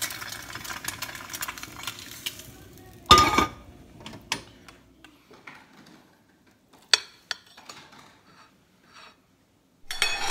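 Kitchen handling sounds: dense crackling and scraping as a fried egg slides from a nonstick frying pan onto a plate, then one loud clank of metal about three seconds in. After that, a few scattered light clinks of a fork on a ceramic plate.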